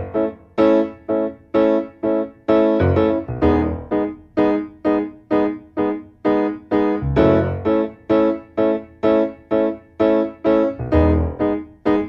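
Background music: a piano or electric piano playing a steady run of separate notes, about two a second, each dying away.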